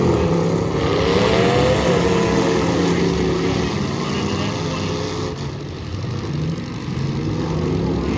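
Several full-size demolition derby cars' engines running and revving at once, their pitch rising and falling as they accelerate.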